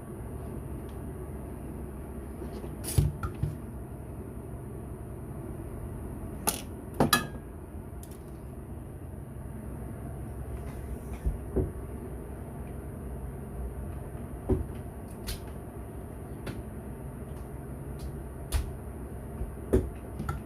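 Scattered sharp clicks and knocks, about eight of them and irregularly spaced, over a steady low rumble.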